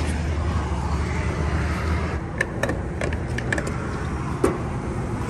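Diesel fuel pump running, fuel flowing into the truck's tank with a steady hum and hiss that stops about two seconds in. A series of sharp metallic clicks and knocks follows as the nozzle is handled and pulled from the filler neck.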